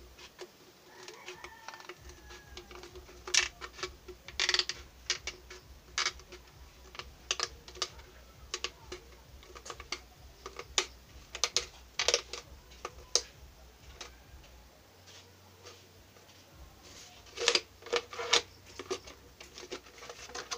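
Scissors snipping through a thin plastic bottle: irregular sharp snips and crackles of the plastic, with louder clusters a few seconds in and again near the end.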